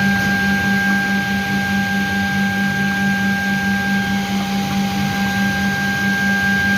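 Birlik Makine BM7 PVC edge banding machine running: a steady motor hum with a constant high whine over mechanical noise.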